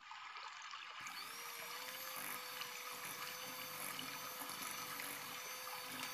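Electric hand mixer switched on about a second in, its motor whining up to a steady speed and running evenly as the beaters whisk an egg into creamed butter and sugar.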